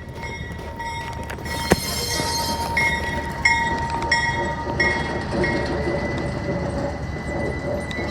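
A train rolling slowly with a steady low rumble, a sharp knock just under two seconds in, then high wheel squeal that comes and goes about every two-thirds of a second.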